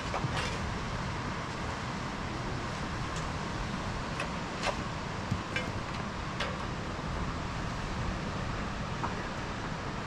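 Steady rushing background noise with a scattered handful of light clicks and knocks, the sharpest a little under five seconds in.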